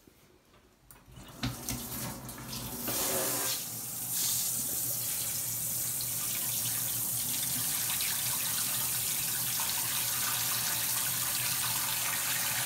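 Water from a pull-down kitchen faucet running into the empty stainless-steel pot of a brewing kettle, filling it to check that it is watertight. After a few handling clicks, the stream starts about a second and a half in, builds over the next couple of seconds, then runs steadily.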